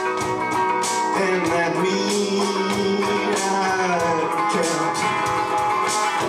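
Country song played on electric guitar, with a steady beat.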